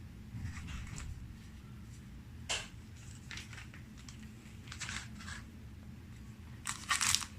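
Faint unboxing handling noises: soft rustles and scrapes of a sunglasses pouch and its packaging, with a sharp click about two and a half seconds in and a louder run of rustling and clicks near the end.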